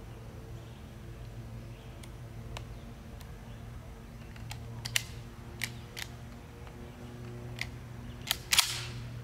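Mossberg 590M 12-gauge pump-action shotgun: a few sharp metallic clicks from about halfway through, then near the end a louder report with a short echoing tail.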